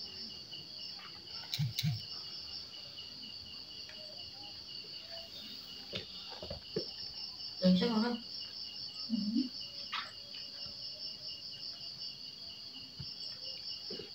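Crickets chirping steadily in a fine, fast pulse that keeps on without a break. A few short louder sounds break in over it, the loudest about eight seconds in.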